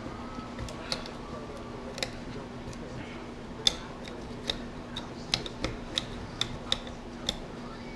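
About a dozen irregular sharp clicks and taps of handling the hole saw and drill at the partly cut hole, over a steady low hum. The drill is not running.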